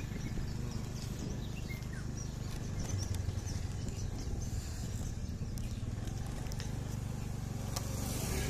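Motorcycle engine running steadily, a low hum.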